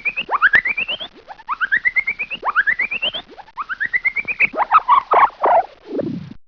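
Old-cartoon sound-effect stinger: a run of five squeaky rising glides made of fast stuttering pulses, then a wobbling warble and a falling glide near the end.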